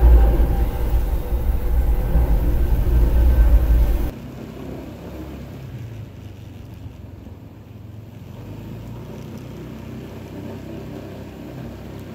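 Motor scooter riding along, its engine running under a heavy low rumble. About four seconds in, the rumble cuts off suddenly, leaving a quieter steady engine sound.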